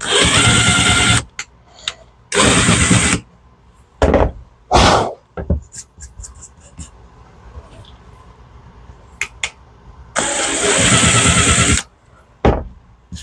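Power drill boring into wood in three short bursts, the motor spinning up and stopping each time, with a few knocks and clicks between the bursts.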